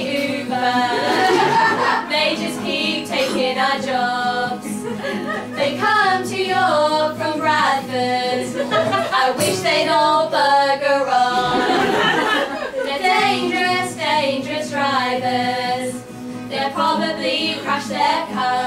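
Several women singing a song together, with an acoustic guitar playing chords beneath the voices.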